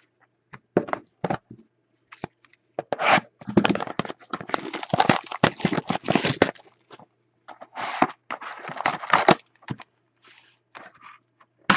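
Wrapping on a sealed trading card pack being torn open and crinkled, in irregular bursts of rustling that are densest in the middle.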